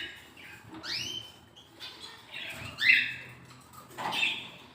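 Canary chicks begging while being hand-fed: a few short, squeaky calls rising in pitch, roughly a second or so apart.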